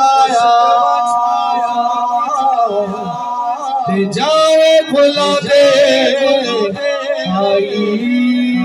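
A man singing a devotional naat-style kalaam unaccompanied, drawing out long, wavering melismatic notes.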